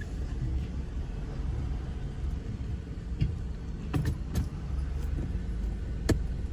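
Car engine running at low speed, heard from inside the cabin as a steady low rumble, with a few sharp clicks or taps in the second half, the loudest near the end.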